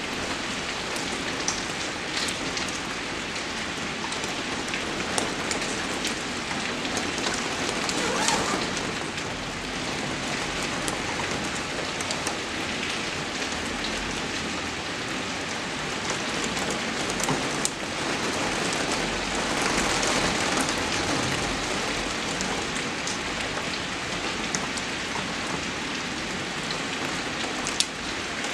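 Rain falling steadily, an even hiss of drops on surfaces with scattered sharp single-drop ticks. It swells a little about eight seconds in and again around twenty seconds.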